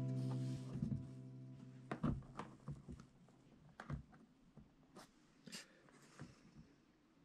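A strummed guitar chord rings out and dies away over the first two seconds, then faint, irregular clicks and taps of a plastic model truss bridge being handled and set down onto its abutments.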